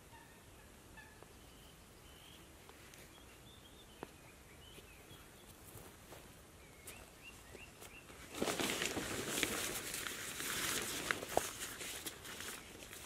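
Small birds chirp faintly. About eight seconds in, loud crinkly rustling starts and lasts about four seconds: a camouflage tarp and its stuff bag are being handled and shaken out.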